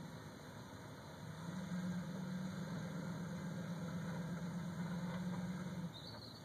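Engine of an off-road rock-crawling truck heard from a distance, running steadily as it creeps down a steep rocky slope; its note rises about a second in and falls back shortly before the end.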